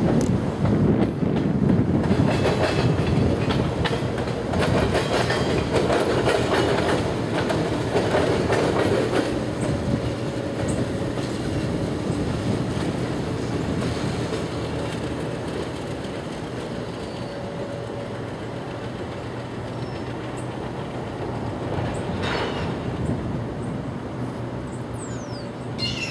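Diesel locomotive moving slowly through a rail yard, its engine running with a steady low tone while the steel wheels clatter over rail joints, with some wheel squeal. The clatter is loudest in the first ten seconds and then eases.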